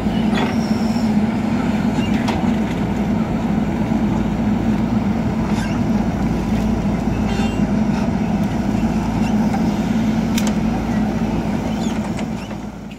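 JCB 3DX backhoe loader's diesel engine running steadily while it digs and loads soil and brick rubble, with a few sharp clanks and knocks along the way. The sound fades out near the end.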